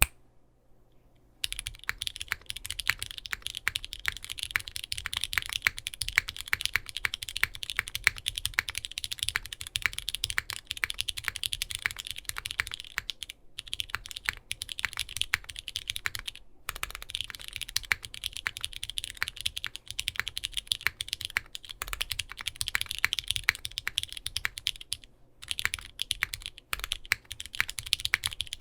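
Typing on a Bakeneko60 custom mechanical keyboard with lubed Cherry MX Brown switches, an aluminum plate and GMK keycaps. A dense run of keystrokes starts about a second and a half in and goes on with a few short pauses.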